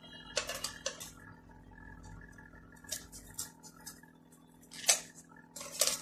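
Kitchen utensils and small tools being picked up and set down among other utensils and into a cardboard box, giving scattered light clicks and knocks, the loudest about five seconds in.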